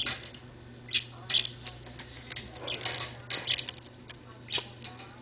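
Budgerigar's feet and beak clicking and tapping on a computer keyboard: light, irregular clicks scattered a second or so apart.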